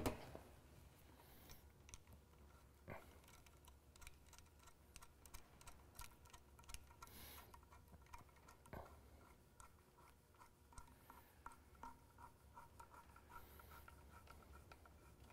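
Faint clicking and scraping of a worm-drive hose clamp being tightened with a screwdriver, with a run of quick small ticks as it turns. A light knock comes right at the start.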